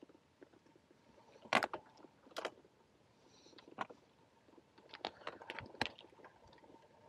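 Loaded touring bicycle rattling over a rough gravel track: irregular sharp clicks and knocks from the bike and its bags, a few at a time, over a faint steady hiss of rolling.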